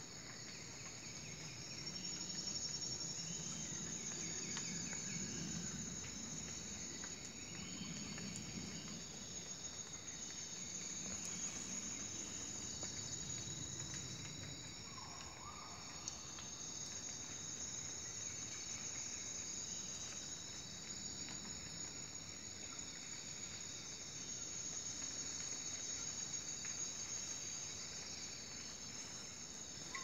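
Forest insect chorus: several steady, high-pitched trilling tones held without a break, over a low, uneven rustle. A short sliding call sounds about halfway through.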